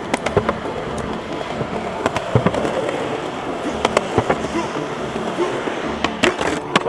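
Skateboard wheels rolling on concrete in a steady rumble, broken by several sharp clacks of the board popping and landing, and the board scraping on a concrete ledge.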